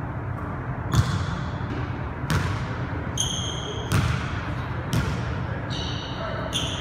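Basketball bouncing on a hardwood gym floor, four separate hits with uneven gaps, with rubber sneakers squeaking on the court in the middle and again near the end.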